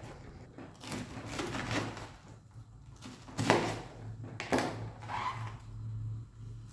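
Containers being handled and set down on a fridge rack: a few separate sharp knocks and clacks over a low steady hum.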